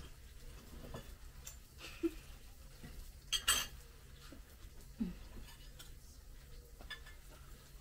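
Cutlery clinking and scraping on plates during a meal, in scattered short clicks, with a sharper clatter about three and a half seconds in, over a low steady hum.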